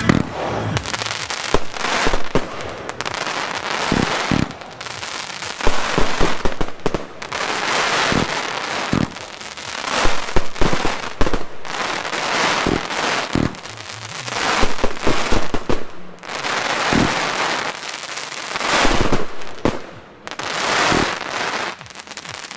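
Two AP Pyrocentury Mad Dog fireworks batteries (25-shot, 30 mm fan cakes) firing together. Repeated sharp launch thumps from the tubes are each followed by a dense wave of crackling from the silver crackling tails and crackling-star breaks.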